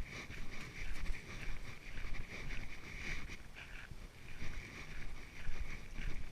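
Footsteps on a trail at walking pace, with wind rumble on the microphone.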